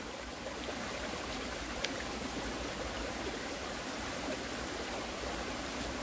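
Small mountain stream running over rocks: a steady rushing trickle, with one faint click about two seconds in.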